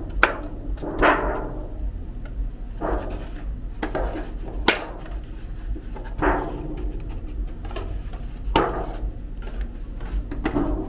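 Kitchen clatter of a baking pan being handled and tapped while it is dusted with flour: irregular knocks, a few sharper ones ringing briefly.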